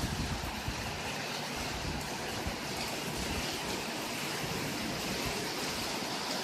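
Steady rushing noise of a thunderstorm's wind and rain, with wind buffeting the microphone in uneven low rumbles.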